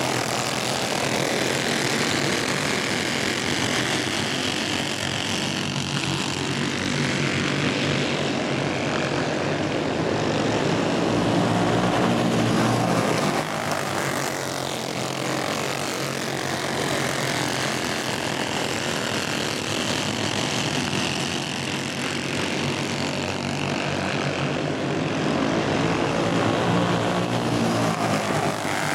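Several racing go-kart engines buzzing at high revs together, the pitch rising and falling as the karts pass and come off the turns.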